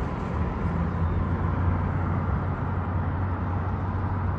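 Road traffic: a steady low hum of vehicle engines with the even rush of cars around an intersection.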